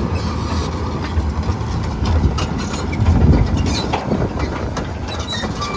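Komatsu PC210LC-10 hydraulic excavator's diesel engine running steadily, with a few light knocks from the machine.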